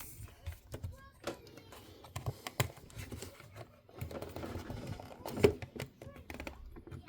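Small clicks and taps of hands working on a small plastic MiniDisc recorder and its parts, with a sharper click about five and a half seconds in.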